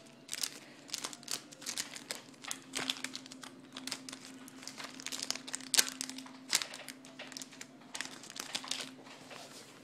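Foil Pokémon booster pack wrapper crinkling with irregular sharp crackles as it is handled and opened.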